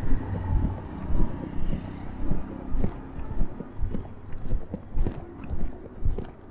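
Footsteps of a person walking on a paved street, about two steps a second, over a steady hum of city street traffic.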